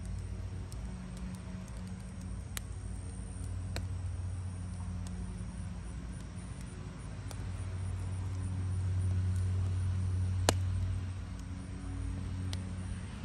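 Battery-powered rotisserie motor humming steadily as it turns the spit, with a few sharp pops from the hardwood fire beneath. The loudest pop comes about ten and a half seconds in.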